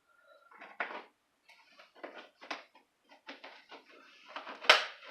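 Butter knife cutting through cooled suet and knocking and scraping against the bottom of a pan: a run of short clicks and scrapes, the loudest one near the end.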